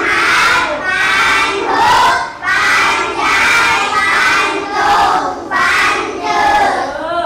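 A class of young children chanting Thai words aloud in unison, a string of loud, drawn-out syllables with short breaks between them.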